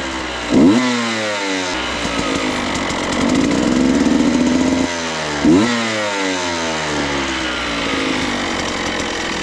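2014 Husqvarna TE125 dirt bike's 125 cc two-stroke single-cylinder engine being revved: a sharp blip about half a second in, a longer held rev around four seconds in, and another sharp blip at about five and a half seconds. Each time it falls back to a steady idle, which it now holds after a rebuild.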